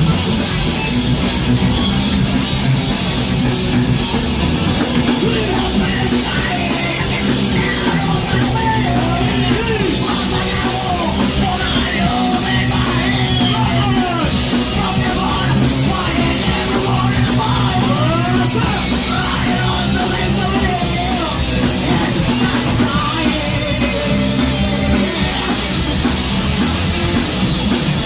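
Thrash metal band playing live: distorted electric guitars, bass and a drum kit, loud and continuous, with a lead line that slides and bends in pitch through the middle.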